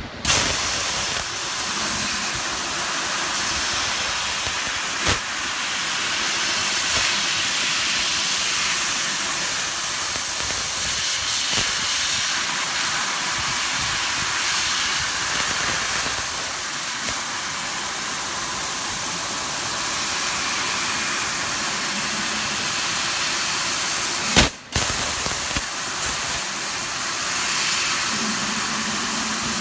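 1000 W fiber laser cutting machine cutting 4 mm stainless steel sheet: a steady, loud hiss from the cutting head, with a brief click and a short dip about 24 seconds in.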